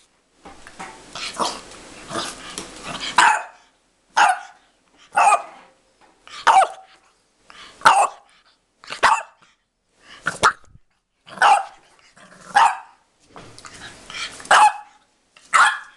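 French bulldog puppy growling and barking: a continuous growly stretch for the first three seconds or so, then a run of short, sharp puppy barks about once a second.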